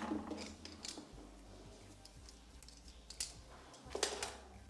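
Scattered light clicks and taps of plastic and cardboard packaging being handled and set down on a table, with the sharpest taps a little after three seconds and around four seconds in.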